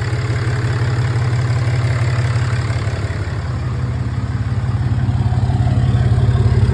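6.7 Cummins turbo-diesel inline-six idling steadily on its first run after a timing case gasket replacement, sounding healthy. It grows louder near the end as the exhaust tailpipe comes close.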